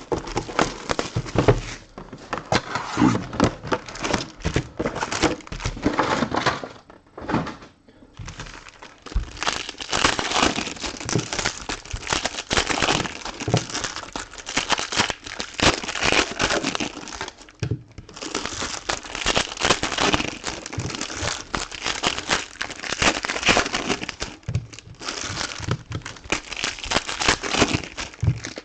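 Plastic wrapping crinkling and tearing as a box of Prizm basketball trading cards and its packs are unwrapped, in a dense run of crackles with brief lulls about seven seconds in and near the middle.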